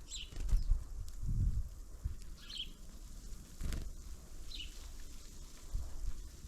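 A small bird's short, high call that slides quickly downward, repeated about every two seconds, over low rumbles and occasional knocks.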